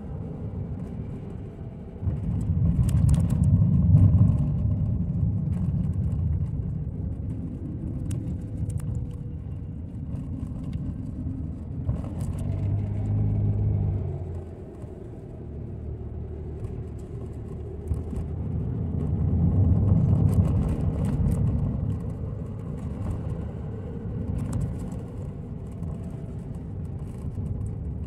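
Car interior driving noise: engine and tyre rumble heard from inside the cabin, its loudness rising and falling a few times.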